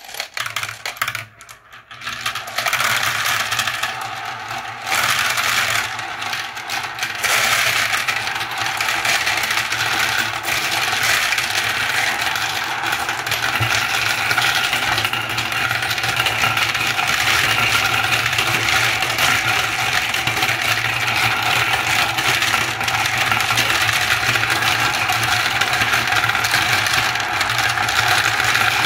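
Many glass marbles and plastic balls rolling and clattering around the plastic funnels and tubes of a marble run: a few clicks at first, thickening within a few seconds into a dense, continuous rattle.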